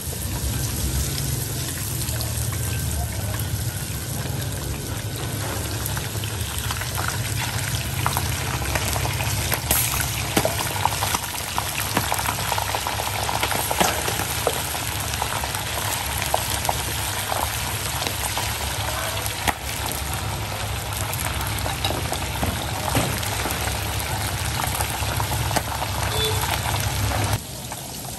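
Crumb-coated king crab legs deep-frying in a pan of hot oil: a steady, bubbling sizzle with many sharp crackles and pops. Near the end it drops suddenly quieter.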